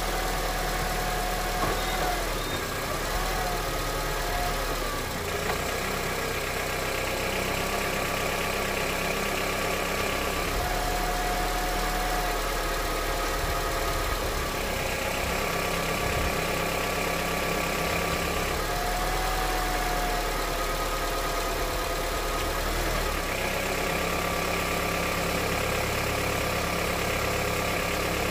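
Honda CR-V engine idling warm on freshly changed thicker 10W-40 oil, running steadily. It carries an engine knock that the thicker oil has not changed, and whose cause the owner cannot pin down.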